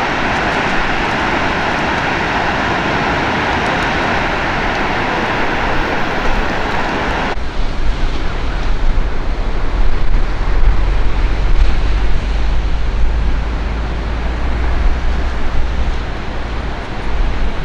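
Steady rushing outdoor noise. About seven seconds in, the sound changes abruptly to wind rumbling on the microphone, rising and falling in strength.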